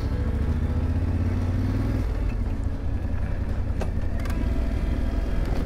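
Adventure motorcycle engine running as it rides along a gravel road. The engine note rises for about two seconds, then drops and settles into a steady hum.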